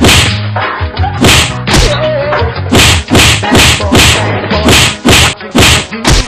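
Dubbed fight sound effects: a fast run of about ten sharp punch whacks and thuds, over background music with a steady bass line.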